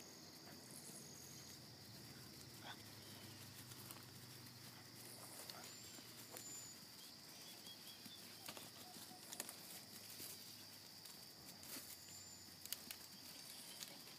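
Near silence, with a steady high-pitched insect drone throughout, a few faint scattered clicks and several tiny, brief high chirps.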